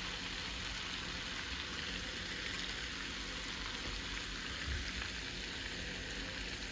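Melted butter and olive oil, with garlic and seasonings in it, sizzling steadily in a pan.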